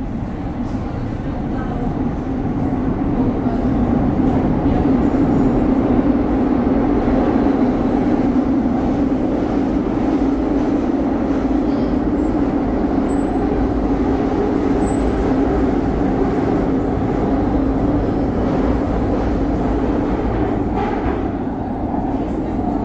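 Madrid Metro train running through a tunnel, heard from inside the carriage: a loud, steady rumble and drone of wheels and running gear. It grows louder over the first few seconds and dips briefly near the end.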